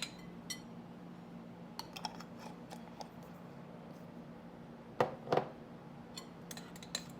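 Kitchen utensils lightly clicking and tapping against a mixing bowl, with two louder knocks about five seconds in, over a steady low hum.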